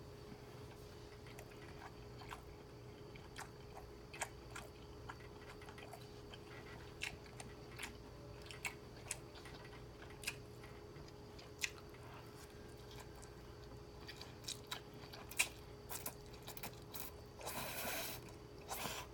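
Close-up chewing of garlic butter noodles with beef and broccoli: a string of short wet mouth clicks and smacks, with one longer slurp about a second and a half before the end.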